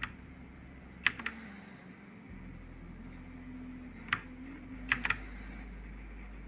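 Keys struck one at a time on a Machenike K500A-B84 mechanical keyboard: six sharp clacks, one at the start, a close pair about a second in, one near four seconds and another close pair about five seconds in.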